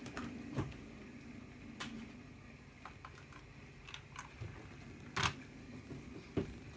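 Irregular sharp metal clicks and clacks from a Zippo-style Zorro petrol lighter being handled, about eight in all, the loudest a little past five seconds in.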